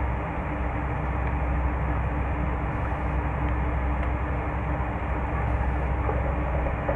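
Steady vehicle rumble with a constant low hum.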